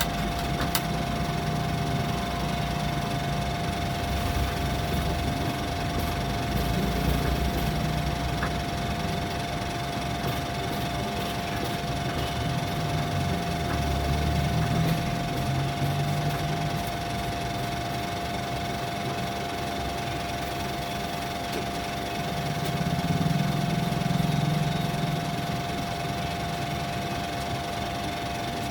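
Steady mechanical drone with a constant high whine, its low rumble swelling and easing a few times.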